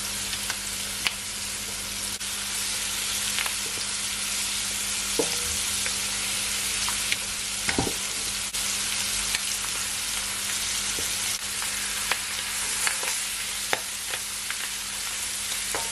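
Chicken drumsticks frying in hot oil and curry powder in a pot: a steady sizzle with scattered pops and clicks as the pieces are pushed around and spaced out.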